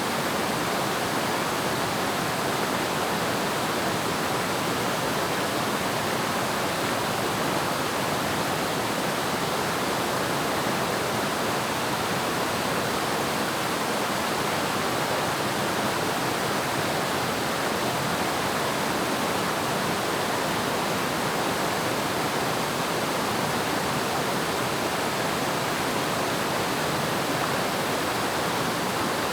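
Waterfall: water falling and splashing in a steady, even rush with no breaks or changes.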